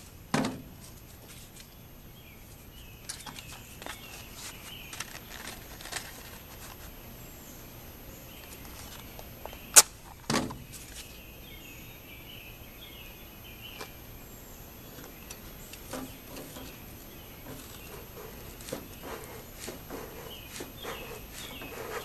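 A bee smoker and its paper and cardboard tinder being handled: scattered light clicks and taps, with a sharp click and a dull knock just after the start and again about ten seconds in. Faint chirping in the background.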